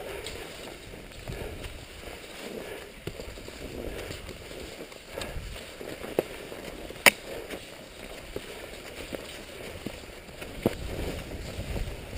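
Cross-country skis sliding and swishing over packed snow on a dog-towed run, with a few sharp clicks, the loudest about seven seconds in.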